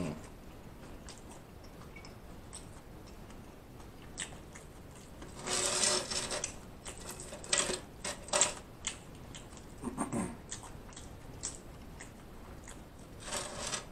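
Crispy fried chicken being handled and shifted on a tray: the breaded coating crackles and scrapes for about a second near the middle, followed by a few sharp clicks and another brief crackle.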